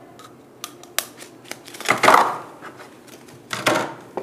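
Steel drill bits handled in a hammer drill's moulded plastic carry case: a few light clicks, then louder scraping rattles about two seconds in and again near the end.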